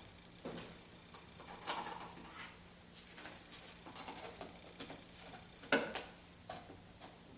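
Light clicks and knocks of a plastic container and its lid being handled, capping a batch of lifters soaking in break-in oil, with one louder knock about six seconds in.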